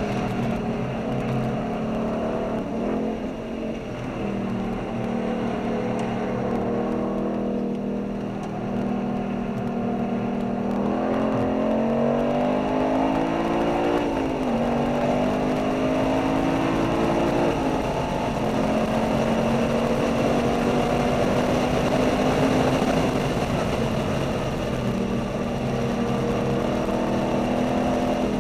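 Ford Boss 302's V8 engine heard from inside the car at track speed, with road and wind noise underneath. The engine note holds steady, then revs up and drops back twice about halfway through as the driver works the throttle and gears.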